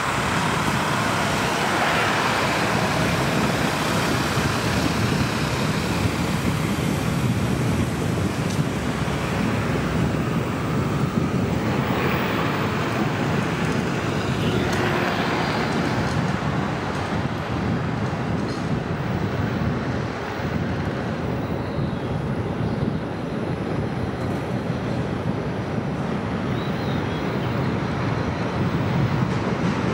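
Steady road traffic noise heard from a moving car: a continuous rumble of tyres on the road, with passing vehicles swelling up and fading a few times, around two seconds in and again near the middle.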